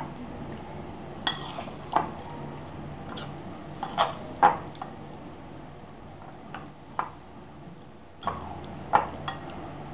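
Metal spoon clinking against a glass bowl while raw chicken pieces are stirred through a wet marinade, with about eight sharp clinks at irregular moments, the loudest about halfway through.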